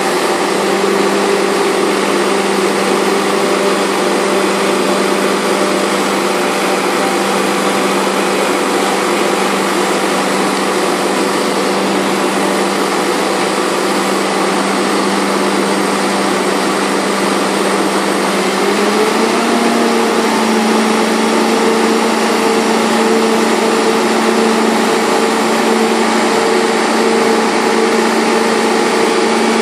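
Tractor engine running steadily, driving a towed grape harvester, with steady machinery noise over the engine tone. About two-thirds of the way through, the engine speed steps up and holds at a higher steady pitch.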